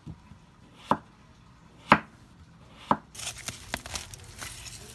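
Kitchen knife slicing green papaya on a wooden cutting board, a sharp chop about once a second, three times. About three seconds in, this gives way to scraping and rustling of a trowel digging in soil.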